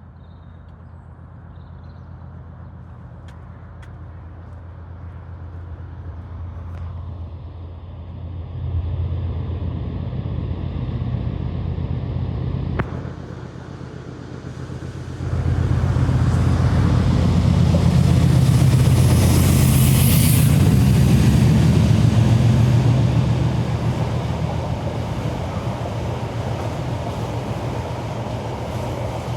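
Diesel locomotive hauling a freight train, pulling away under power with a deep engine note that builds over the first several seconds. It drops back briefly just before halfway, then comes in loud for several seconds as the locomotive passes close. It settles to a steadier rumble near the end.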